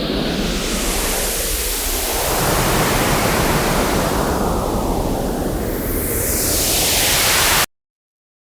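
A photograph of a cat's face rendered as sound by Photosounder's image-to-sound conversion: a dense, loud hiss of noise with slowly shifting sweeps in it. It cuts off suddenly near the end.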